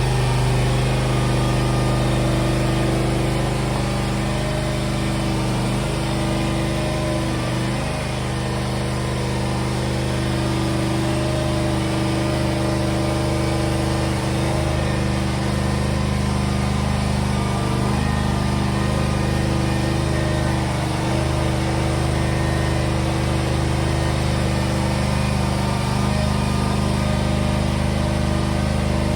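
A motor runs steadily at one unchanging pitch, with a few brief dips in load.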